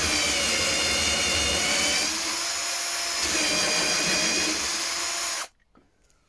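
Cordless drill turning a hole saw through a white sheet, cutting a round gauge hole; the motor's whine wavers up and down in pitch under the changing load. It stops abruptly about five and a half seconds in.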